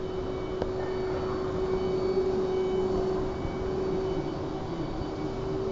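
Dual-head CO2 laser cutting machine running as its heads trace a cut in fabric: a steady machine hum with one constant tone over an even rushing noise.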